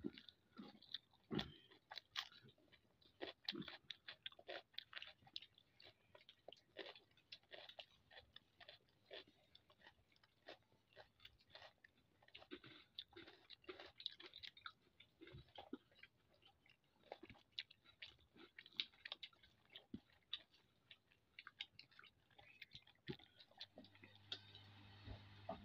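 Faint close-up eating sounds of rice and curry eaten by hand: chewing and small wet mouth clicks in a steady run, with fingers working the rice on the plate.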